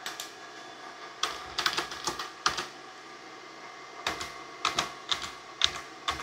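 Keystrokes on a computer keyboard: a part number being entered into a form field, heard as two quick runs of key clicks with a few single clicks around them.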